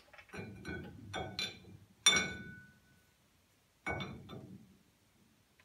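Metal brake parts clinking and knocking against a Mustang II front spindle and hub as they are trial-fitted. A run of light clinks gives way to a sharp clank about two seconds in that rings for nearly a second, and another knock comes near four seconds in.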